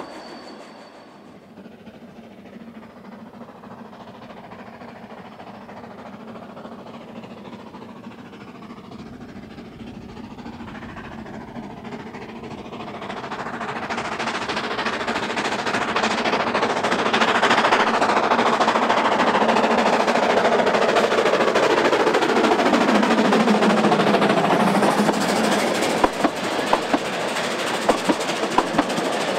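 A narrow-gauge steam train comes closer and passes close by. It is faint at first, grows steadily louder from about halfway, and its sound drops in pitch as the locomotive goes past. Near the end the coaches' wheels give a sharp, regular clicking over the rail joints.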